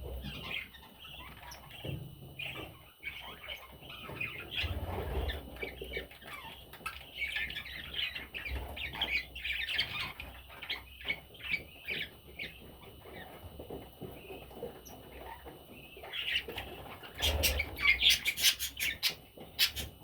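Budgerigar chattering: a steady stream of short chirps and warbles. Near the end comes a quick run of loud, sharp clicks.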